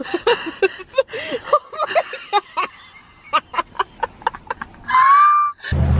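People laughing hard in short bursts of giggles, with a high rising squeal about five seconds in. Near the end the sound cuts to the steady low drone of a boat's engine.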